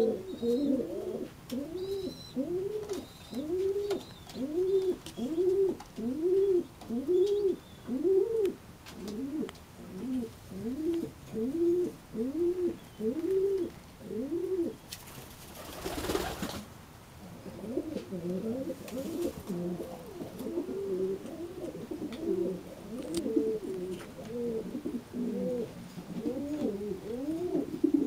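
Domestic pigeons cooing: one bird's rising-and-falling coos repeat about twice a second, then after a short burst of rustling noise about halfway through, several birds coo over one another.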